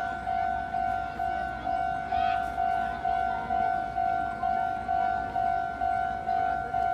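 Railway level-crossing warning bell ringing in an even, steady rhythm of about two dings a second, each ding fading before the next. It is the signal that a train is approaching the crossing.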